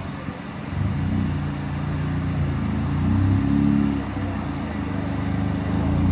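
2017 Nissan Sentra Nismo's 1.6-litre turbocharged four-cylinder running through a muffler-delete exhaust, revved lightly several times: the note steps up about a second in, climbs highest around three and a half seconds, drops back and rises again near the end.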